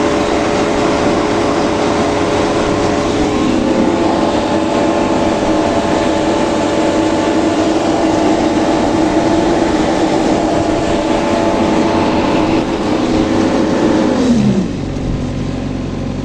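Jacobsen Fairway 305T fairway mower running steadily at working speed with its hydraulic reel cutting units down on the grass. About fourteen seconds in, the engine speed drops quickly and it settles at a lower, quieter run.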